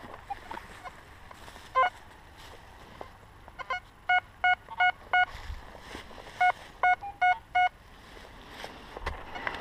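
Metal detector giving its target tone: short, clear electronic beeps, one lower-pitched beep about two seconds in, then two runs of four quick beeps of the same steady pitch. The beeps repeat with each sweep of the coil over a buried metal target.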